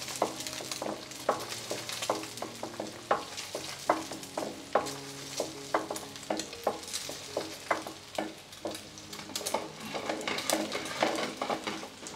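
Thin layer of beaten egg frying in a pan on high heat, sizzling steadily with many small crackling pops.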